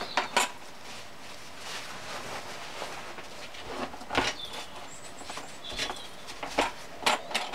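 Light handling sounds: a few sharp clicks and taps of metal on a plastic tray, and a paper towel rubbing with short squeaks over the threaded studs of a lathe chuck, wiping off excess threadlocker.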